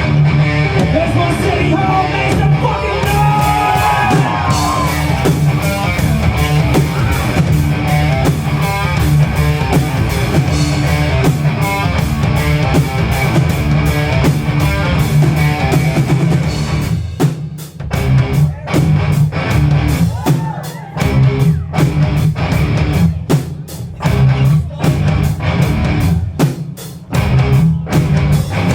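A live rock band playing loud distorted electric guitar, bass and drum kit. About halfway through the music turns to stop-start hits with short gaps between them.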